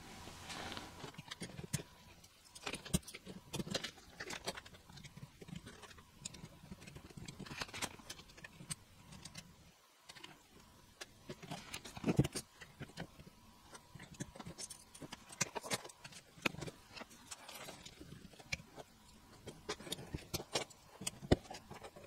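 Plastic keycaps being pulled off and pressed onto the Cherry MX Silent Red switches of a mechanical keyboard: irregular small clicks and taps, a few louder than the rest.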